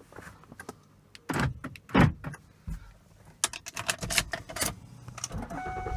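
Power door lock actuators of a 2010 Lincoln MKX clunking as the newly programmed remote key locks and unlocks the doors: two loud clunks about a second and a half and two seconds in, then a quicker run of clicks and clunks. Near the end a steady hum with a held tone comes in.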